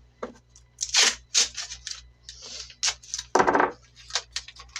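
Tape being pulled off a roll and torn, in a series of short rasping rips and clicks. The longest, loudest rip comes about three and a half seconds in.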